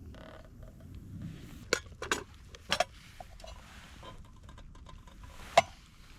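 Metal cookware and utensils handled at a camp wood stove: a handful of sharp clinks and knocks, the loudest about five and a half seconds in, over a low steady rumble.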